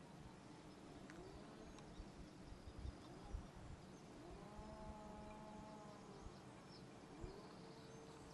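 Near silence: faint outdoor ambience, with a few soft low thumps about three seconds in and a faint thin tone a little later.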